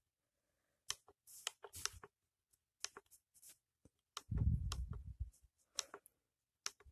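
Faint clicks of a Canon PowerShot SX130 IS's scroll wheel and buttons pressed while stepping through its menu, about eight short clicks at uneven intervals. A low, muffled rumble lasts about a second near four seconds in.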